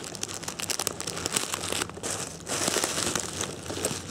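Plastic bubble wrap crinkling and rustling as it is pulled off by hand, with a short lull about two seconds in, then louder again.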